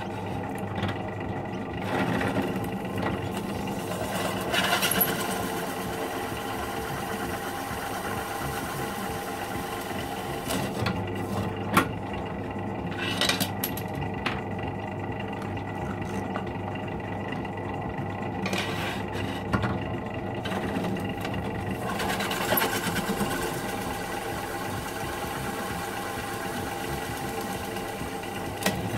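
Benchtop drill press motor running steadily while a bi-metal hole saw cuts XLR connector holes in a panel. The cutting noise comes and goes several times over the steady motor hum, with a few sharp clicks.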